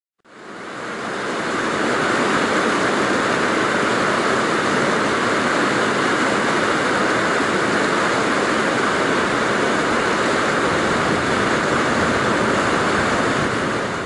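Water rushing over rocks in a small creek cascade: a steady, even rush that fades in over the first two seconds and begins fading out at the very end.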